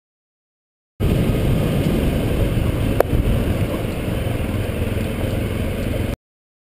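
Motorcycle ridden along a dirt road, recorded on an onboard camera: the engine running under heavy wind rumble on the microphone, with a single sharp click about halfway through. The sound starts abruptly about a second in and cuts off suddenly near the end.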